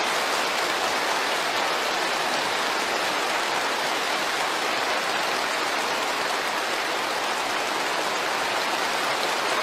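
Large crowd applauding: many hands clapping at once in a dense, steady sound that holds without a break.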